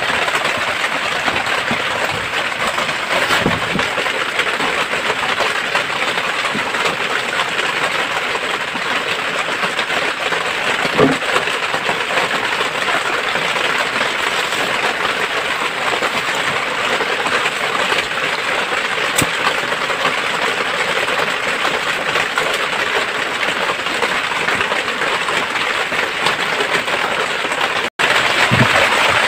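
Heavy rain pouring steadily, an even hiss, with a few faint knocks.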